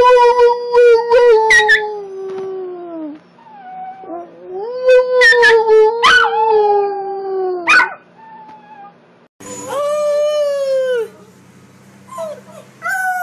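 Dachshund howling: two long drawn-out howls, each sagging in pitch at the end. Then a puppy gives a shorter, higher falling howl and a few short whines near the end.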